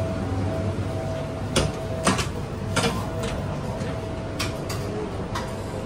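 Inside a subway train car standing at a station: a steady low hum with a faint steady tone, and a handful of sharp clicks and knocks, the loudest about two seconds in.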